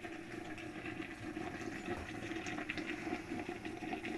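Water splashing and churning in a large copper cooking pot (deg), a steady watery noise with fine crackles.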